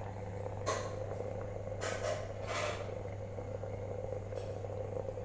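MCP 3-in-1 electric steam vaporiser running at a setting between minimum and medium, giving off vapour, with a steady hum under it. A few brief noises come between about one and three seconds in.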